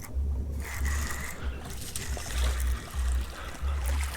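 Uneven low rumble on the microphone, coming and going every half second to a second, over the steady wash of river water.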